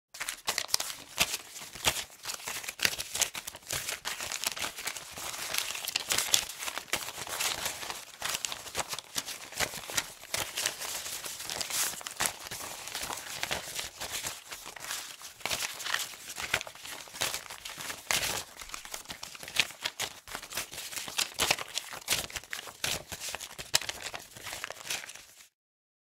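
Paper money bills being rustled and handled: a dense, continuous run of crisp crinkles and sharp snaps that cuts off suddenly near the end.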